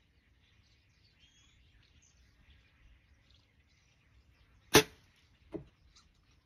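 A Bowtech compound bow shot once, about three-quarters of the way in: a sharp, loud snap of the string as the arrow is released, then, under a second later, a fainter thud of the broadhead-tipped arrow striking the target at 50 yards.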